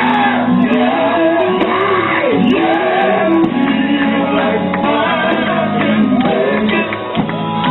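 Live gospel group playing, with instruments holding steady notes under a man's voice shouting and singing, sounding like a large hall.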